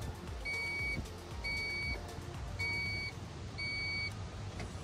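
Honda Accord dashboard warning beeper sounding with the ignition switched on: four even, high beeps about a second apart, each about half a second long, over a low rumble.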